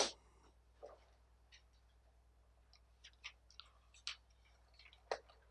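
Quiet room tone with a low steady hum, broken by a short noise at the very start and then a handful of faint, irregular clicks, one of them near the end standing out a little louder.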